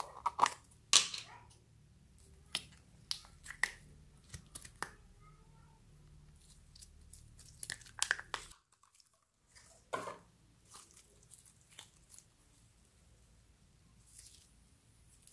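Sticky slime being pulled and squeezed out of a plastic jar by hand, making irregular sharp clicks, pops and crackles, with a brief break into silence about nine seconds in.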